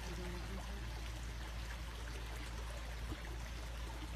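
Steady rush of running creek water, with a low rumble underneath.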